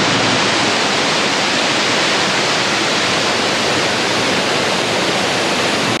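Waterfall water rushing over rocks: a loud, steady hiss with no breaks.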